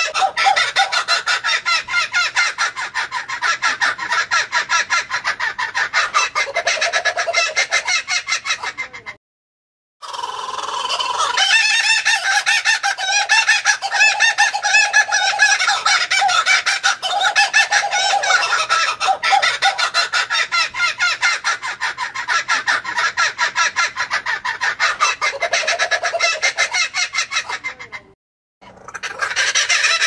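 Laughing kookaburra laughing: long runs of fast, rhythmic cackling calls. The calls break off twice into brief silence, about nine seconds in and near the end, then start again.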